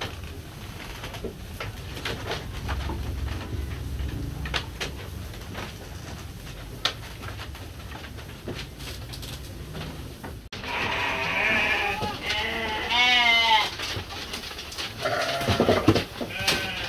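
Sheep feeding at wooden troughs, with rustling and small knocks, then several loud bleats in the second half, one with a quavering tremble.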